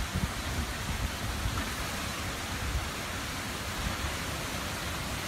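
Hurricane-force wind and heavy driving rain: a steady rushing hiss, with wind buffeting the microphone in low rumbles that are strongest at the start and then ease.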